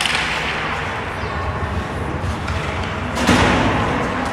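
Ice hockey game sounds over steady arena noise: a sharp knock at the start and a louder crash about three seconds in that rings out over about a second.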